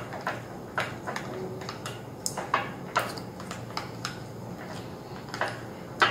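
A spoon stirring thick slime in a glass dish, knocking and scraping against the glass in irregular clicks and taps.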